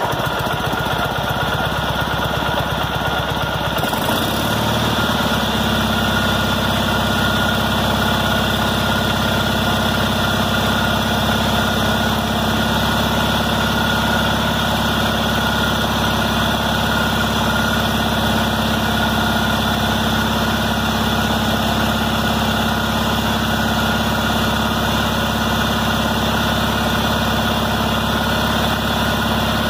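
Kohler M18 engine of a Cub Cadet 1882 garden tractor, just started and running, settling to a steady speed about four seconds in. It is being run for an oil pressure check, with the gauge reading about 40 psi, lower than the owner would like for a cold engine.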